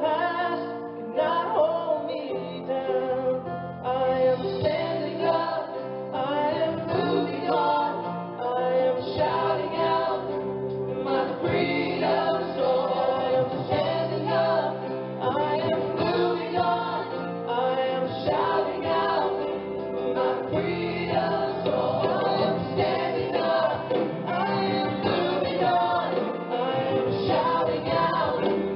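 Background music: a song with singing voices, a choir-like vocal over instruments.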